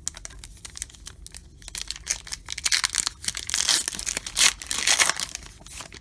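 Foil wrapper of a baseball card pack being torn open and crinkled: scattered crackles at first, building to dense crinkling in the second half.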